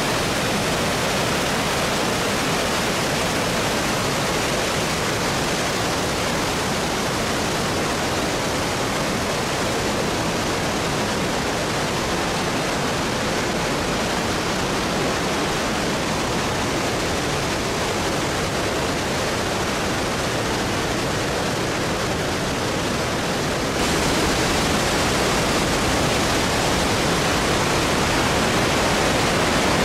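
Steady rush of falling water from the Krka Falls waterfall, an even hiss with no other sound on top, stepping up a little louder and brighter about three-quarters of the way through.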